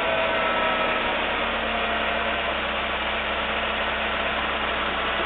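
Car engine idling steadily after the revving has stopped; the freshly repaired car is running.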